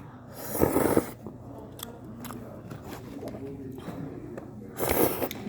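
Cup ramen noodles slurped twice, each slurp a loud, noisy rush under a second long, one about half a second in and one near the end.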